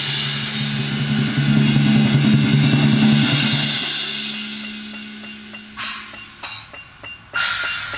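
Drum corps front ensemble playing: a held low chord on marimbas under a swelling, shimmering cymbal wash that peaks about four seconds in and then fades away. Near the end come three short, bright cymbal strokes.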